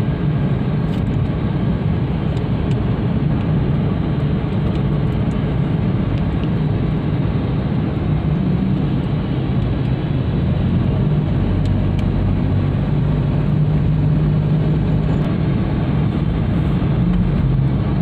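Car driving along a road, heard from inside the cabin: a steady low drone of engine and road noise.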